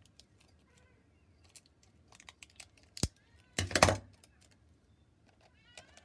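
Sellotape and paper being handled while taping down a paper lantern's base: a sharp click about three seconds in, then a short loud rasp of tape pulled and pressed onto the paper. A faint wavering cry sounds in the background early on.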